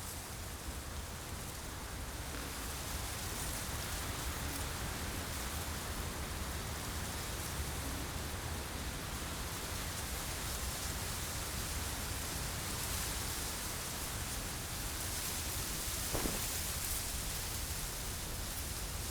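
Steady outdoor hiss with a low rumble beneath it, even throughout, like rain or wind in the open.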